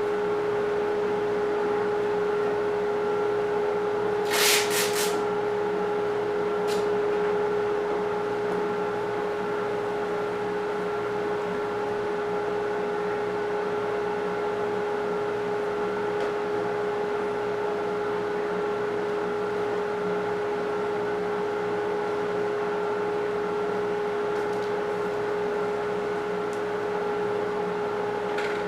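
Electric random orbit sander running steadily on heart pine flooring: a constant motor hum with a sanding hiss, and a short burst of sharp clicks about four seconds in.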